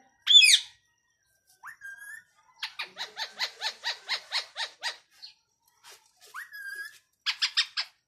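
Indian ringneck parakeet calling. A loud squawk opens the sequence, followed by a rising note, a fast run of about a dozen short repeated calls, another rising whistle, and a quick burst of four calls near the end.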